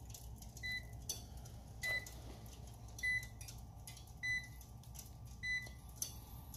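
Short, high electronic beeps repeating about every 1.2 seconds, over a steady low hum.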